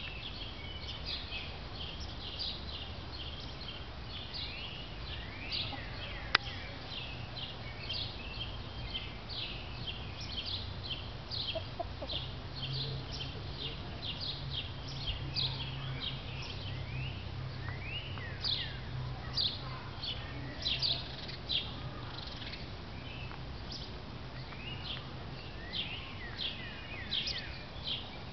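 Small birds chirping over and over in quick, high notes, above a steady low hum that gets stronger about halfway through. There is one sharp click about six seconds in.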